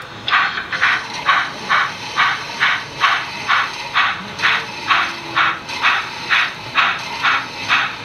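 Model steam locomotive's sound unit playing steady exhaust chuffs, about two a second, as the locomotive runs slowly along the track.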